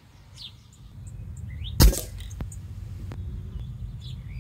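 A single shot from an Air Arms XTi-50 precharged pneumatic air rifle about two seconds in: one short, sharp report.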